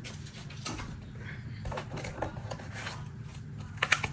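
Oracle cards being slid and picked up from a spread on a table: soft rubbing and scraping of card on card and table, with a few sharper ticks near the end.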